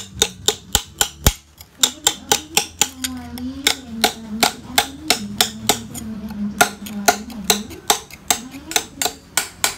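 Hammer striking a steel chisel into carved stone, sharp even taps at about three a second as a stone carver cuts detail into a sculpture. A low wavering hum runs under the strikes from about two seconds in until near the end.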